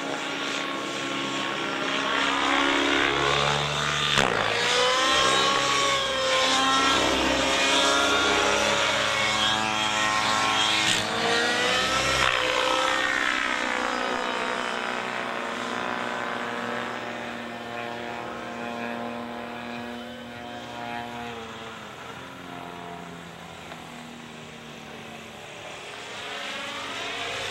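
Align T-Rex 700 nitro RC helicopter, its YS .91 glow engine and rotor running under hard aerobatic load. The whining pitch sweeps up and down again and again as it swoops and flips. The sound is loudest in the first half, fades as the helicopter flies farther off, then grows again near the end.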